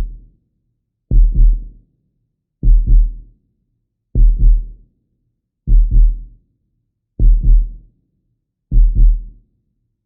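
Simulated heartbeat sound effect: a deep double thump (lub-dub) repeating about every one and a half seconds, each beat two low thuds close together with a short fading tail.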